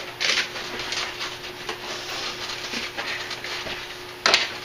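Small cardboard box of table-saw accessories being handled and opened: soft repeated rustling of the cardboard and loose parts rattling inside. A single sharp knock about four seconds in.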